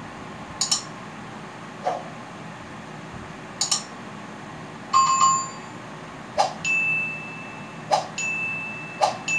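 Click sound effects and notification chimes from an animated subscribe, bell, like, share and comment button graphic: about seven sharp clicks, a multi-tone bell ding about five seconds in, and the last clicks each followed by a steady high chime lasting about a second. Under them is a steady background hiss.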